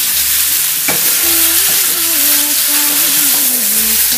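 Pork trotters, mushrooms and dried oysters sizzling in oil in a hot wok while a spatula stirs and scrapes them, with one sharp clack about a second in.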